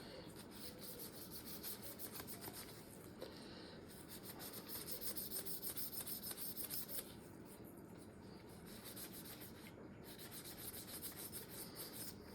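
Faint rubbing and scrubbing on Glock pistol parts during cleaning, in quick back-and-forth strokes of about four a second, strongest in the middle and easing off after.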